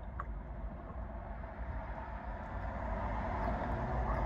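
Low, steady vehicle rumble heard from inside a car cabin, growing gradually louder.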